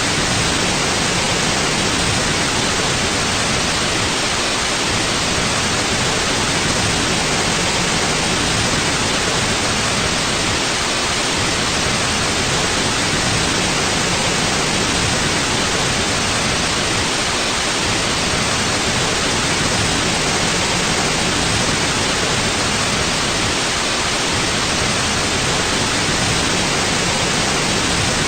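Steady white noise for sleep: an even, unchanging hiss with no events in it.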